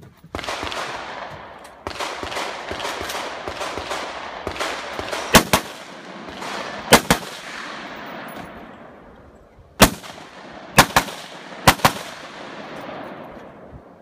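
Gunshots at a 3-gun match stage: about nine loud shots from about five seconds in, mostly fired in quick pairs, over a loud rushing noise that fades toward the end.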